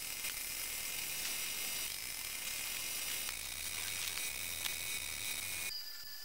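Compressed-air spray gun spraying paint onto a motorcycle engine cover: a steady hiss with a low rumble beneath, cutting off near the end.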